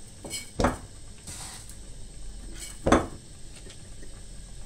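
Two short knocks of a glass jar and kitchen utensils being handled on a counter, about two seconds apart.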